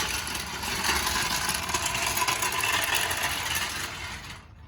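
A car driving past on the street, its engine and tyre noise steady and then fading away near the end.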